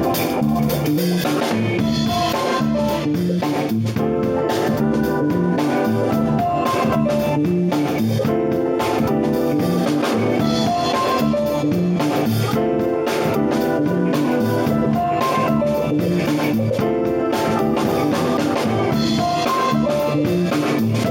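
Electronic keyboard ensemble playing a jazz-fusion tune at full band volume, with a steady drum beat under the keyboards.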